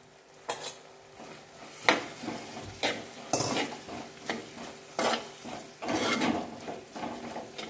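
Onions and chopped tomatoes frying in a pot, stirred with a spoon. Short scrapes of the spoon against the pot come about once a second over a soft sizzle.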